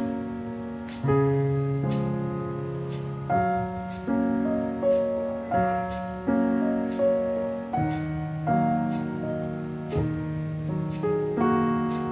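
Background piano music: chords and melody notes struck about once a second, each fading away after it is played.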